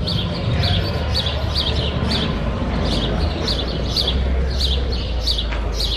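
A small bird chirping over and over, short high chirps about twice a second, over a low steady rumble.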